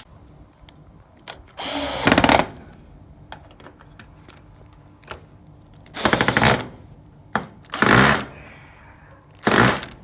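Power drill driving a screw in four short bursts, the first about a second and a half in and the last near the end, running the screw down tight.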